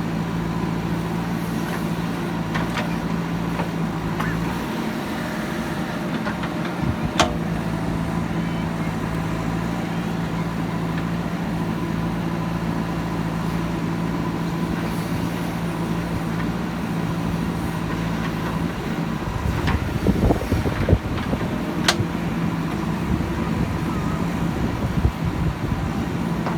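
Diesel engine of heavy earthmoving machinery running steadily, with two stretches of louder, rougher rumbling and two sharp clanks, about a third of the way in and again near the end.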